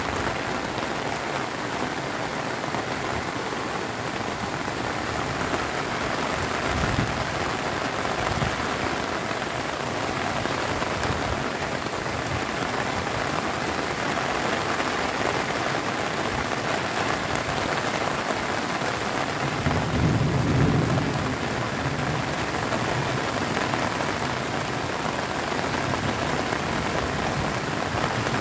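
Steady rain falling on a flat concrete rooftop and the roofs around it, with a low rumble for about two seconds about two-thirds of the way through.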